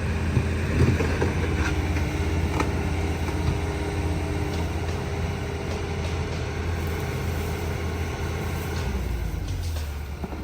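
Vehicle engine running steadily, with a few short knocks in the first few seconds. Near the end the engine note drops lower and quieter.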